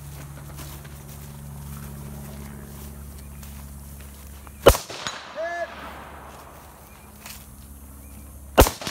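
Two rifle shots from a scoped rifle fired over a wooden barricade, about four seconds apart, the first about halfway through and the second near the end. Each is a single sharp crack. A short high note follows about half a second after the first shot.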